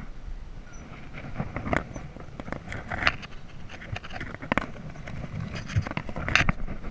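Hiking shoes stepping and scuffing down bare sandstone, with the metal clink of the steel chain handrail as it is gripped, giving a few sharp knocks and scrapes at uneven intervals.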